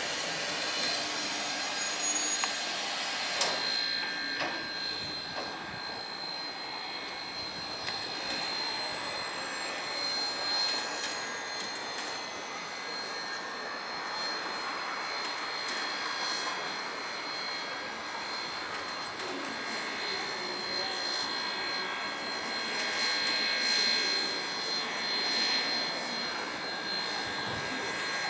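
Queensland Rail BB18¼ steam locomotive standing at the platform with a steady hiss of escaping steam. A faint whine falls slowly in pitch over the first ten seconds or so.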